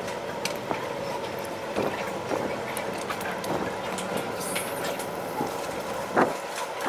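Airport terminal ambience heard from behind the glass: a steady mechanical hum with a faint whine, broken by scattered clicks and knocks, the loudest about six seconds in.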